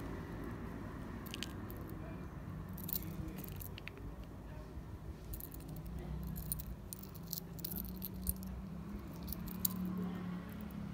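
Light clicking and faint rattling as a metal enamel pin with a dangling bead charm is handled and turned in the fingers, the clicks coming more often in the second half, over a low steady hum.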